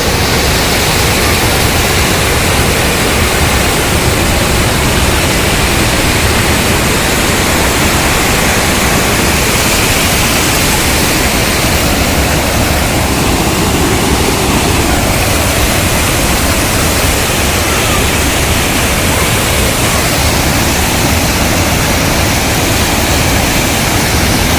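Rain-swollen water pouring from a small dam into a canal: a loud, steady rush with no break.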